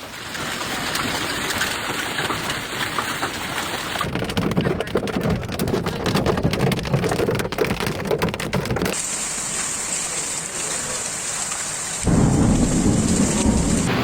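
Thunderstorm downpour pounding down, heard in a few spliced clips. The middle stretch is a dense patter of sharp strikes, and from about twelve seconds in a louder low rumble joins the hiss.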